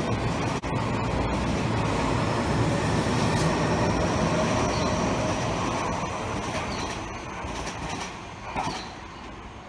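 Tobu Tojo Line train running on the rails with steady rumble and wheel noise that fades away over the last few seconds as the train moves off.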